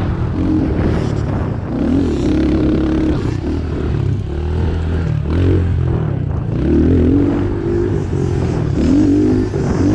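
Stock Honda CRF110F's small air-cooled four-stroke single-cylinder engine revving hard under load, its pitch climbing and dropping back again and again as the throttle opens and shuts and the gears change, over a steady noisy rush.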